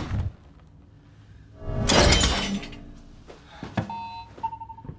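Film sound effects: a heavy impact at the start and a loud crash with metallic ringing about two seconds in. Near the end comes a click, then a few electronic beeps from the elevator control panel as it is pressed.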